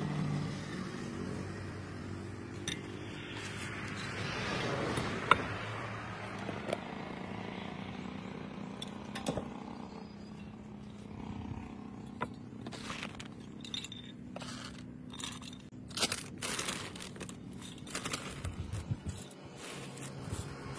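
Scattered crunches, clinks and rustles of snack-making by hand: crisp fried shells handled and broken, chopped onion dropped onto a steel plate, and puffed rice scooped from a plastic bag, over a steady low hum. The clicks and crackles come thicker in the second half, with one sharp click about five seconds in.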